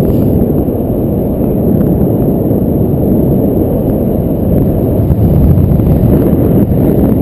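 Airflow of paraglider flight buffeting an action camera's microphone: a loud, steady, low rumbling wind noise.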